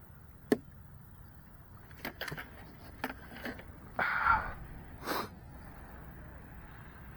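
Handling sounds: scattered knocks and clicks, a sharp one about half a second in, a louder scraping rustle about four seconds in and another knock a second later, as the RC boat and its gear are put down.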